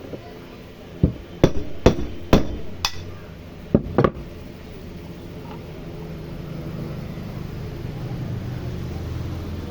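About seven sharp knocks in the first four seconds, from hammering or tapping during a repair of a CM4 handheld cutter, then a low steady hum that slowly builds.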